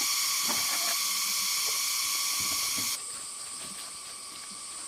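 Forest insects buzzing in a steady, high-pitched chorus; about three seconds in, the chorus changes abruptly and becomes quieter.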